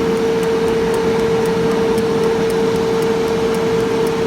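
Air fryer running with its fan whirring: a steady rushing noise with one constant humming tone, and a faint regular ticking over it.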